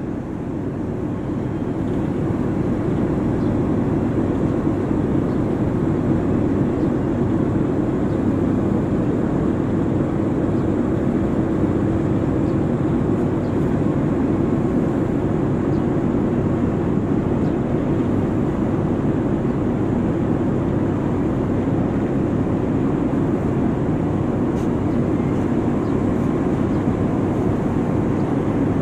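Steady engine drone mixed with the rush of water and wind, as heard from a boat under way close alongside a bulk carrier's hull.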